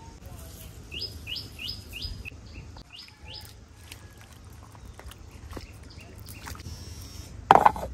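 A bird calling: a quick run of about eight short falling notes, about three a second. After it come a few light clicks of a wooden spatula stirring in a clay pot, and a loud knock near the end.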